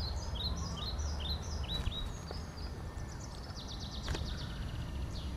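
Outdoor ambience: small birds chirping, a quick run of short repeated chirps followed by a rapid trill, over a steady low background rumble.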